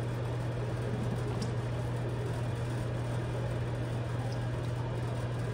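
A steady low mechanical hum, unchanging throughout, under the faint sound of evaporated milk being poured in a thin stream into a pot of milk.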